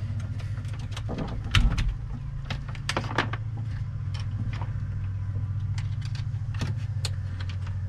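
Clicks and small knocks of cable and metal terminal hardware being handled as a charger's red positive lead is fitted onto a boat battery's positive post, with a louder thump about a second and a half in. A steady low hum runs underneath.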